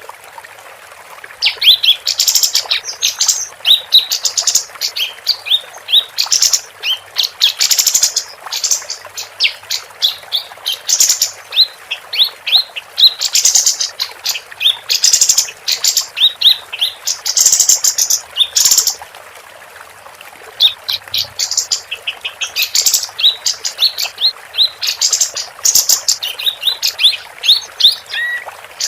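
Female kapas tembak singing a long, rapid run of high chirps and fast trills in bursts, with a short pause partway through, over a steady hiss.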